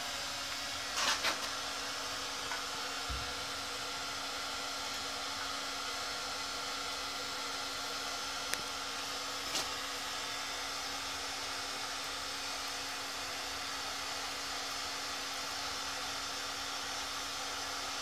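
Steady fan-like whir with a low hum from a small electric melting furnace, running while molten copper is poured, with a few faint clicks.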